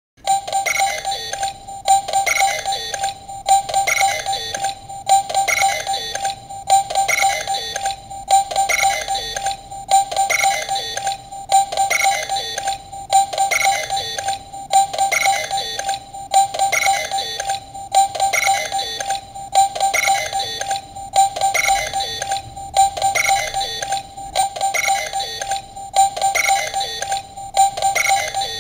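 Bandai DX Mega Ulorder transformation-bracelet toy playing its electronic standby sound: a short synthesized beeping phrase that loops about once a second.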